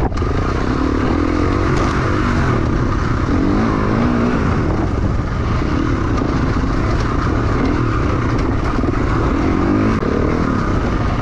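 Enduro motorcycle engine running hard, its pitch rising and falling as the throttle is worked.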